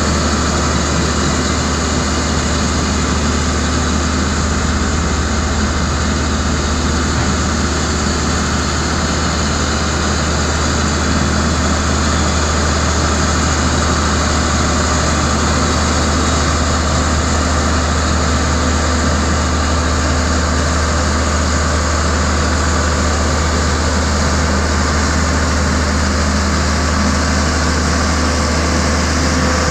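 Diesel engine of a Foton single-drum vibratory road roller running steadily, heard close by, with a deep, even drone.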